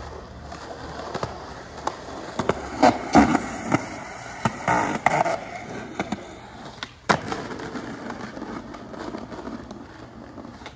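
Skateboard wheels rolling over concrete and asphalt with a steady grinding rumble. Several sharp clacks of the board hitting the ground come in the middle, the loudest about seven seconds in.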